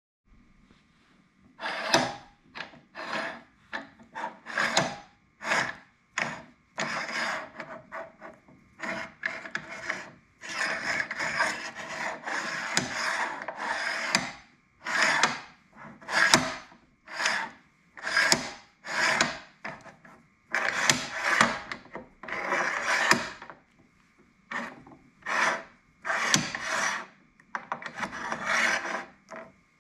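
Base clamps of a Tomcat MT-400 tennis stringing machine being pushed back and forth along the base, giving a repeated scraping rub with strokes of varying length and a longer unbroken rub in the middle. The clamps drag rather than glide, which the owner takes for the machine's known clamp-grab problem, not as smooth as on other machines.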